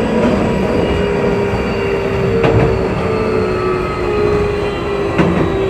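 Keio 8000 series electric commuter train running, heard from inside the car: steady rumble of wheels on rail under a steady traction-motor whine, with two sharp clicks of the wheels over rail joints, about two and a half seconds in and near the end.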